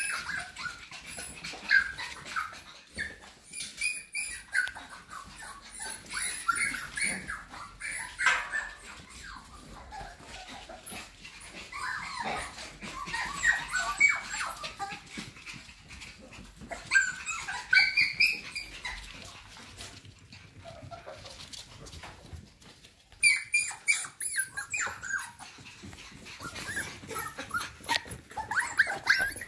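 Cockapoo puppies at play, giving short, high-pitched yips and whines scattered throughout, mixed with small clicks and taps.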